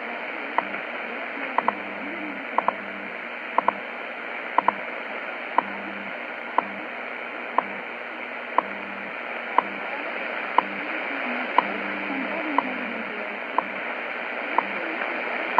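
WWV time-signal station on 5 MHz shortwave, heard through a Tecsun PL-600 receiver: a short tick every second over steady static hiss. In the first five seconds four of the ticks come doubled, which marks the UT1 correction, and the station's time code pulses faintly and low underneath.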